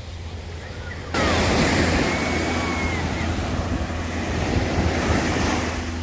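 Ocean surf breaking and washing up the beach, mixed with wind buffeting the microphone; the rushing noise jumps suddenly louder about a second in.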